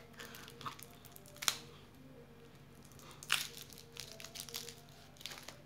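Plastic wrapper of a Chupa Chups lollipop being crinkled and torn open by hand: soft rustling broken by a few sharp crackles.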